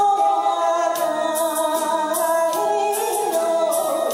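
A woman singing a Japanese enka song into a microphone, holding long notes over a karaoke backing track with a steady beat.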